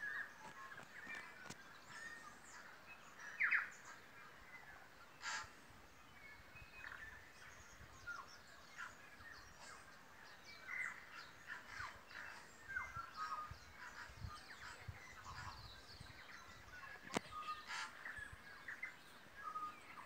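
Mixed chorus of New Zealand native forest birds calling over one another: many short chirps and whistled notes, with one louder call about three and a half seconds in and a couple of sharp clicks.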